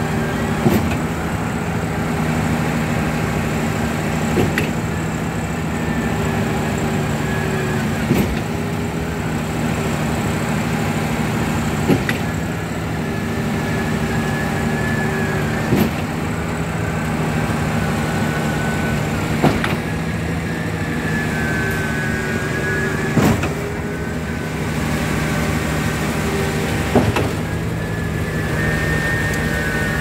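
Truck-mounted concrete boom pump running: a steady diesel engine hum with a wavering hydraulic whine, and a sharp knock about every four seconds as the pump's cylinders change stroke.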